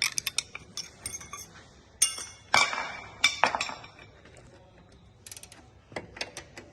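Metal hand tools clinking, a series of sharp clinks with brief ringing, the loudest about two and a half and three and a quarter seconds in, as a 16 mm tool is taken up for the brake caliper bolts.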